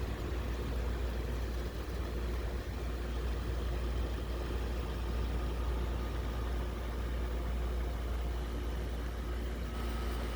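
Toshiba 6,000 BTU window air conditioner running with a scroll-cage blower wheel fitted: a steady rush of air over a strong low hum. A faint high tone joins near the end.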